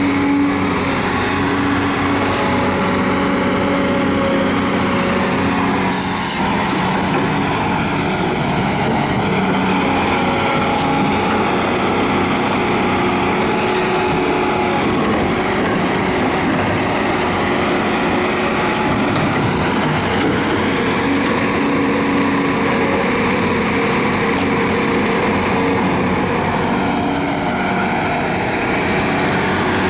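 Volvo EC460BLC hydraulic excavator's diesel engine running steadily under working load as the boom, arm and bucket are moved, its note wavering up and down. There is a brief hiss about six seconds in.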